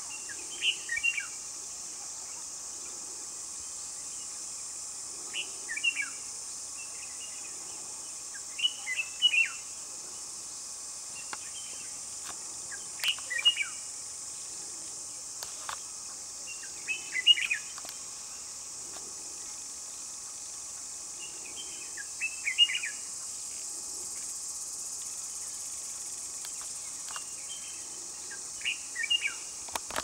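Red-whiskered bulbul singing short, bubbly phrases, seven of them a few seconds apart, over a steady high drone of insects.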